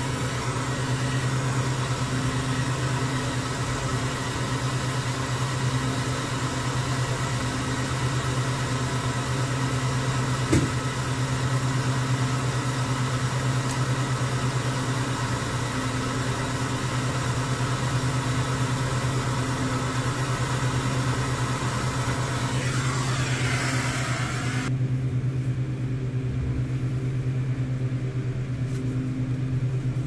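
Hand torch flame hissing steadily as it heats a copper fitting on a condensate drain line, cutting off about 25 seconds in. A steady low machine hum runs underneath, with one sharp tick about ten seconds in.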